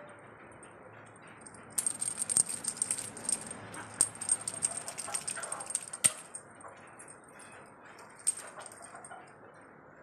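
Feathered fake-bird cat toy rattling and jingling as it is jiggled and swatted, in a busy run of clicks from about two seconds in until about six seconds in. A sharp knock comes near the six-second mark, and a few more rattles about eight seconds in.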